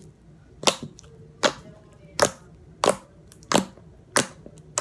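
Pink slime pressed and kneaded by hand, making a sharp popping click roughly every three-quarters of a second as air pockets burst, six pops in all.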